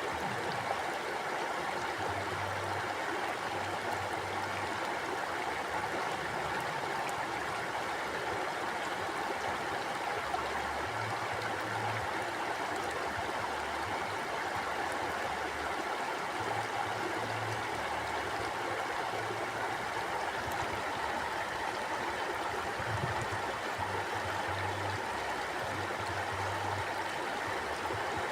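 Mountain stream flowing steadily over rocks, a continuous rushing and gurgling of water.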